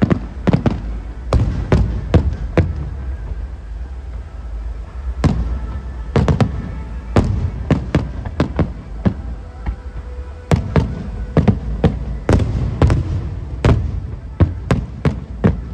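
Aerial fireworks shells bursting in an irregular series of sharp bangs over a steady low rumble, with a lull about three to five seconds in and a dense cluster of bangs in the second half.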